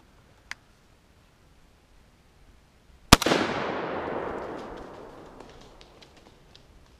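A single gunshot from a long gun about three seconds in, a sharp crack followed by a long echo that dies away over about two seconds.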